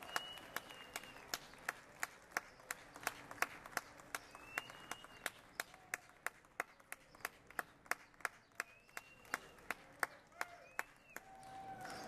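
A few spectators clapping steadily for a home run at a minor-league ballpark, distinct single claps about three a second. A few short high whistles rise and fall between the claps.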